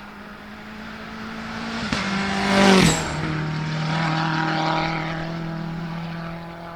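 Small turbocharged four-cylinder race car passing at speed. The engine note holds a steady pitch as it grows louder, peaks about three seconds in, drops in pitch as the car goes by, then fades away.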